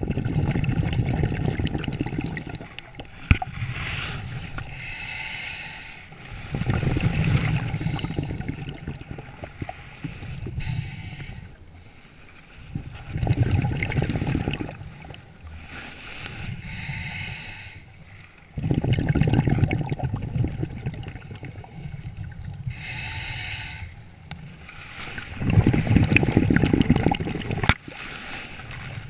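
Scuba diver breathing through a regulator underwater, heard five times: a hiss on each inhale, then a bubbling rush as the exhaled air escapes, about every six seconds.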